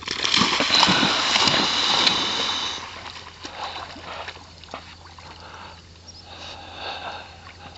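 A Labrador retriever plunging into a pond and splashing through the shallows for about the first three seconds, then fainter water sounds as it swims out.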